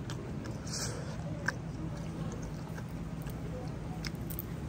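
Scattered light crackles and clicks of crisp fried spring-roll wrapper as a turon is broken apart and dipped into a fried-wrapper cup of cheese sauce, over a steady low hum.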